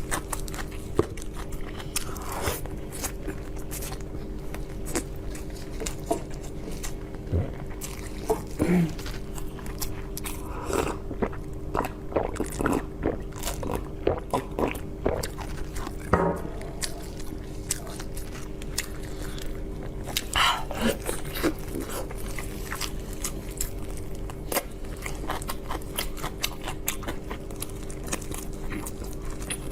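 Close-up chewing and biting on large pork lion's head meatballs: many short wet smacks and clicks scattered through, with a steady low hum underneath.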